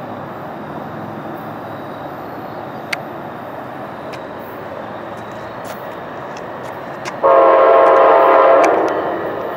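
Amtrak passenger train approaching with a steady rumble, then sounding one long horn blast of several notes at once about seven seconds in, lasting about a second and a half.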